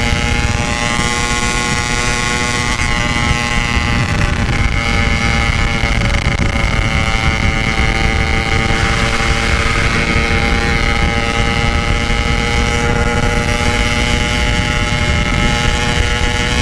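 Yamaha RX King single-cylinder two-stroke engine with a stock-style Packing Power exhaust, running at a steady, held speed while riding, its note almost unchanging. Wind rumbles on the microphone underneath.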